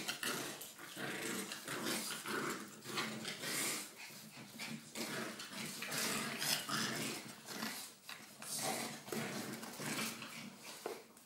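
Puppies and an adult dog play-fighting, growling and yapping in a continuous, irregular scuffle of short bursts.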